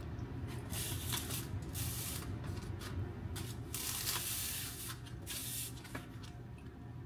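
Several short hissing sprays, each under a second long, the longest about four seconds in, over a faint low hum.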